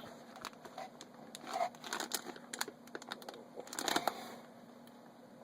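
Small plastic clicks and light handling rattles as the retention clips of the RAM slots on a Sabertooth 990FX motherboard are flipped open, scattered and irregular, busiest in the middle.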